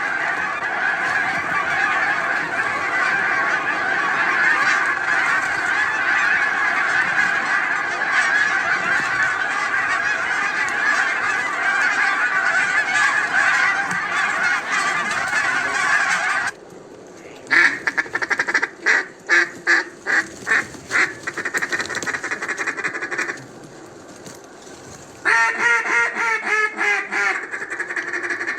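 A large flock of geese calling together in a dense, continuous chorus that cuts off suddenly about two-thirds of the way through. Then come a series of separate honks, a short pause, and a quick burst of honking near the end.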